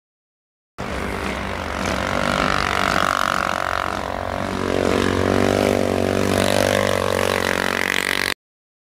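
ATV engines running hard under load, revving up and down about halfway through. The sound starts abruptly about a second in and cuts off abruptly near the end.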